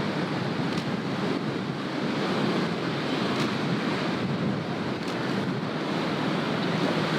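Ocean surf washing steadily, with wind blowing across the microphone.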